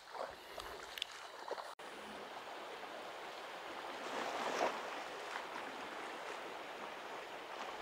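Steady rush of flowing stream water that swells a little midway, with a few faint knocks in the first second and a half.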